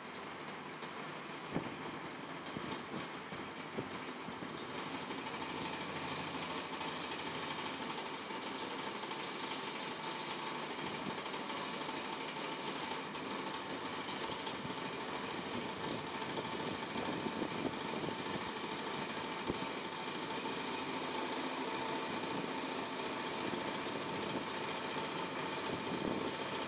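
Whirling-of-shaft lab rig running: an electric motor spins a thin shaft held between chucks, giving a steady mechanical hum with a faint whine and rattle and a few sharp clicks. It grows slowly louder as the shaft speeds up toward its critical (whirling) speed, where it vibrates violently.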